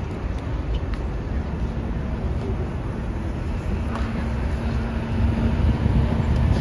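City street traffic: a steady low rumble of passing vehicles, joined about four seconds in by a steady low engine hum that stops near the end.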